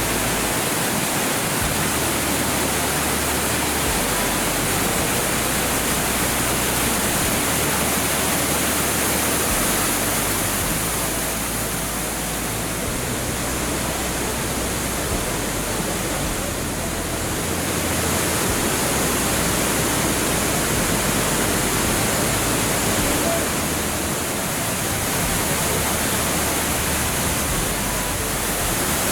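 Waterfall in a mountain gorge: a steady rush of falling water.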